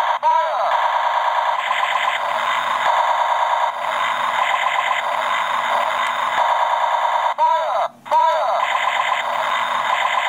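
Battery-powered knockoff GoBots Convertible Laser Gun toy playing its electronic sound effect: a falling zap, then a steady, rapid electronic rattle. A second falling zap comes about seven seconds in, and the sound breaks off for a moment near eight seconds before the rattle resumes.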